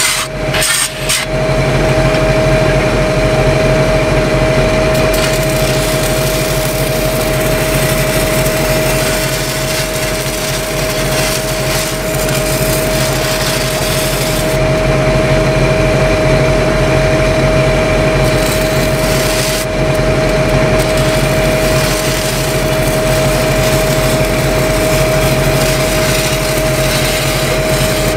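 Pipe-welding arc crackling and hissing steadily after a few sputtering starts in the first second or so. Under it run a steady tone and a low hum from the engine-driven welding machines.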